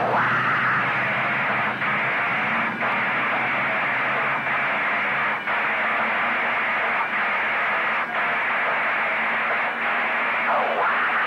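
A pack of Modified stock cars running together on the track: a loud, steady wash of engine noise with a few brief dips, dull and muffled at the top end.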